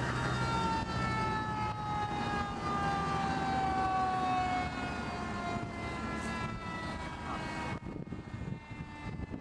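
Fire truck siren winding down, its pitch falling slowly over about six seconds, over the low rumble of engines and traffic.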